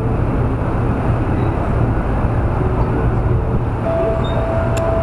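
Steady low outdoor rumble, with a thin steady tone coming in about four seconds in.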